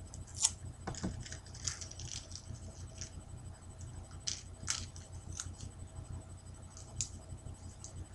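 Faint, scattered small clicks and crinkles of adhesive tape being cut into short pieces and pressed on, over a steady low hum.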